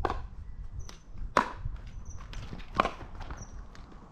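Pickleball paddles hitting a plastic pickleball in a rally: three sharp pocks about a second and a half apart, with footsteps on the court between them.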